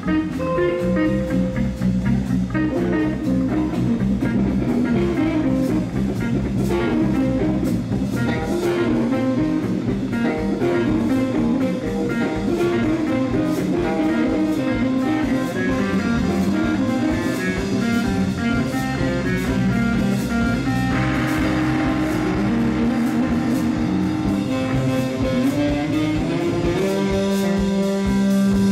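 Live band jam: two electric guitars, a Stratocaster-style and a Les Paul-style, playing over a drum kit with a steady beat. About three quarters of the way through the playing turns brighter and denser, and near the end a long low note is held.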